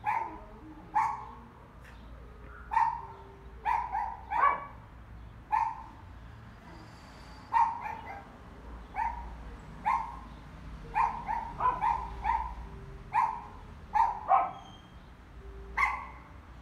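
Short, sharp animal calls repeated over and over, about one a second and now and then two in quick succession.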